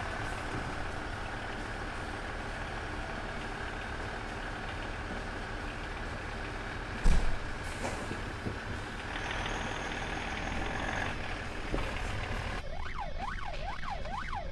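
Fire truck's engine running, heard from inside the cab, with one loud thump about seven seconds in. Near the end the vehicle's siren starts, a fast wail sweeping up and down in pitch.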